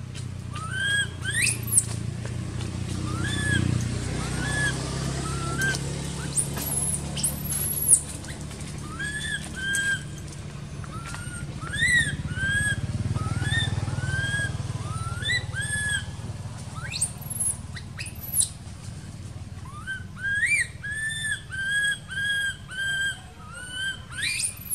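Infant macaque crying: a string of short, high-pitched calls, some sweeping up into shrill squeals, coming in a quick run of about two a second near the end.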